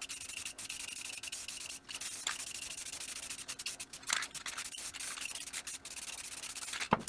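A rag rubbing over the face of a steel truck wheel, wiping on aluminum-colored paint in repeated scrubbing strokes.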